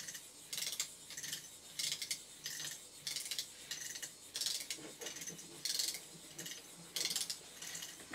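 A 3D-printed walking robot's legs driven by a small right-angle gear motor and cams: plastic ratchets and feet clatter in short bursts in a steady rhythm, about every second and a quarter, over a faint hum from the motor.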